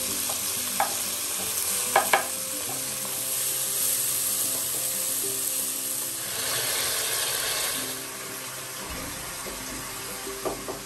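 Chopped tomatoes and onions sizzling in mustard oil in a metal kadai, with a wooden spatula knocking and scraping against the pan as they are stirred. The sizzle swells for a couple of seconds just past the middle.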